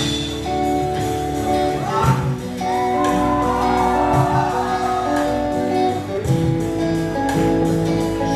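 Live rock band playing an instrumental passage: guitar melody with held and bent notes over bass guitar and drums.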